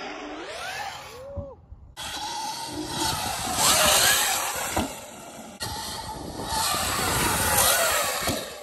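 Sur-Ron electric dirt bike's motor whining, its pitch rising and falling as the rider works the throttle, over a rushing noise. The sound changes abruptly about 2 seconds in and again past the middle.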